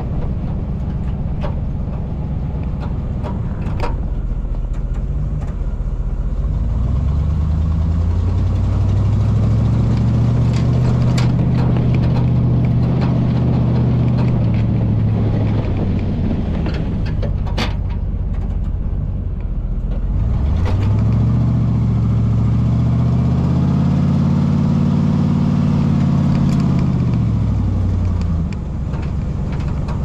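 Square-body pickup plow truck's engine running under load while plowing snow. It revs up and holds higher for several seconds, then drops back, twice, with a few scattered sharp clicks.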